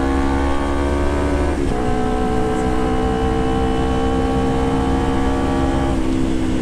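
Kawasaki Ninja 250 carbureted parallel-twin engine running through a Termignoni aftermarket exhaust while riding. The note drops at a gear change about one and a half seconds in, then climbs slowly as the bike pulls, and eases off near the end.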